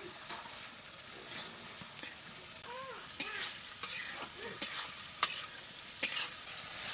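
Chicken curry sizzling in a metal kadai over a wood fire while a metal ladle stirs it. Several sharp clicks in the second half are the ladle scraping and knocking against the pan.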